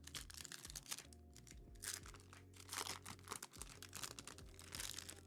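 Crinkling and rustling of trading-card pack wrappers and cards being handled, in many short irregular crackles, over steady background music.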